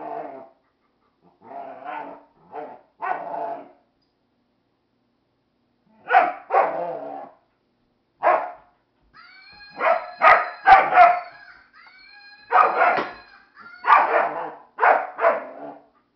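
Young German Shepherd barking at a stuffed monkey toy, in short bursts of two to four barks with pauses between. Partway through, a thin, high, wavering squeal sounds in and around the barks.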